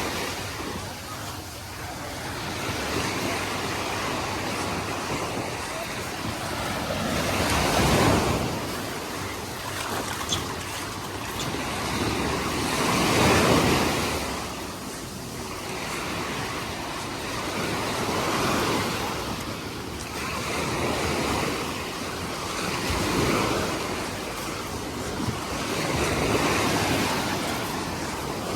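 Small sea waves breaking and washing up the shore, swelling and fading in a slow rhythm about every four to five seconds.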